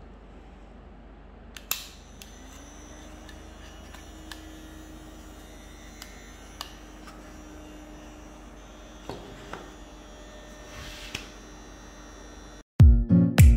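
Small DC hobby motor spinning the purifier's plastic fan: a click about two seconds in, then a faint steady hum that rises briefly in pitch and settles, dying away after several seconds. A few light knocks of the plywood box follow, and guitar music starts near the end.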